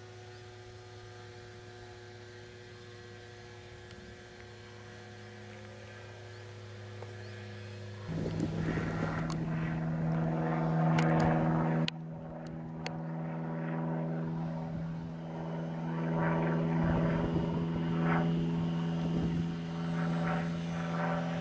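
Electric outrunner motor and propeller of a radio-controlled scale Tiger Moth biplane droning steadily in flight. About eight seconds in, the pitch steps up and it gets louder, with gusts of rushing noise and a few sharp clicks.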